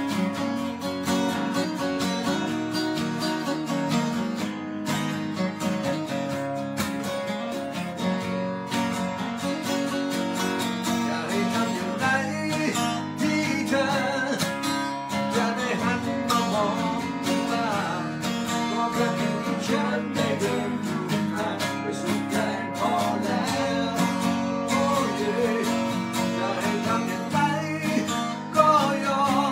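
Two acoustic guitars strummed together in a steady rhythm. A man's singing voice comes in over the guitars about twelve seconds in.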